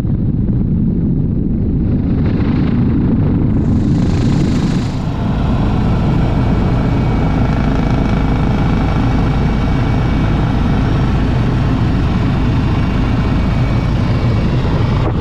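Helicopter in flight: a loud, continuous low rumble of rotor and engine. For the first few seconds it is rough and gusty, with wind buffeting the microphone. About five seconds in it changes to a steadier drone with a faint high whine running through it.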